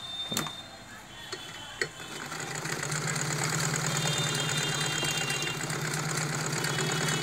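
Usha domestic sewing machine starting up about two seconds in after a couple of sharp clicks, then running steadily as it stitches cloth with its upper thread tension loosened, the setting that gives loose stitches.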